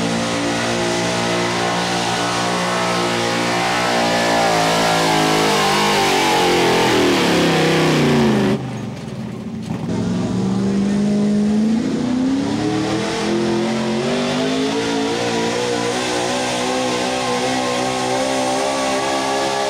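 Super stock 4x4 pulling truck engine at full throttle dragging a sled, its revs sagging and falling away over a couple of seconds as the truck bogs down. After a sudden break, a second pulling truck's engine revs up from low over about three seconds as it launches with the sled. It then holds high revs through the rest of the pull.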